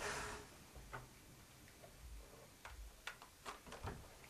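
Faint plastic clicks and handling as a card recording unit is fitted onto a Sony HVR-Z7 camcorder: a soft rustle at first, one click about a second in, then several small clicks close together near the end.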